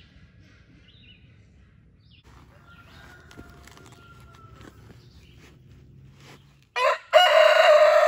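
Rooster crowing: a short note at about seven seconds, then a loud, long, held crow that continues past the end.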